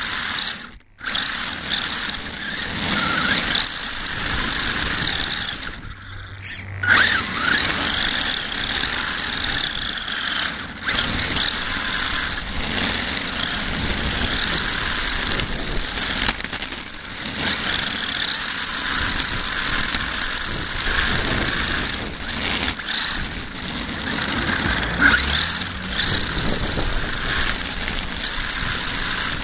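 HSP RC buggy heard from on board while driving on asphalt. Its motor whines up and down in pitch with the throttle over steady tyre and wind noise, with brief drops in level about a second in and around six seconds.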